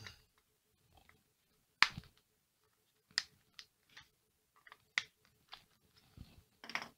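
Scattered sharp clicks and light taps of small parts and tools being handled on a work table, the loudest about two seconds in.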